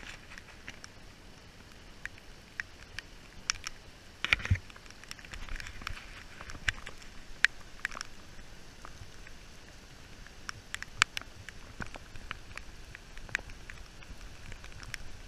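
Light rain: scattered raindrops ticking irregularly on leaves and wet pavement over a faint steady hiss, with a few louder drops about four seconds in and again around seven and eleven seconds.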